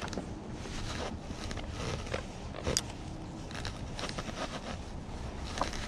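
Small irregular clicks, taps and rustles from hands working a spinning rod and reel, with one sharper click about three seconds in, over a low rumble of wind on the microphone.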